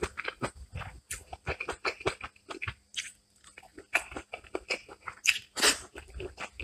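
Close-up eating sounds of a person eating rice and masala chicken by hand: a run of short chewing and biting sounds, with a quiet pause about halfway through and two louder ones near the end.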